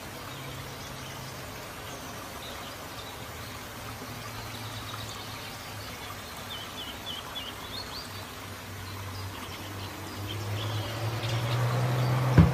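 Outdoor pond ambience: an even wash of water noise, with a bird chirping a quick run of notes about halfway through. A steady low hum grows louder near the end, and there is a brief thump just before it ends.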